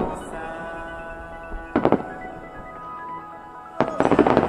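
Fireworks going off over music with held tones. There is a short burst of bangs about two seconds in and a longer, louder run of bangs near the end.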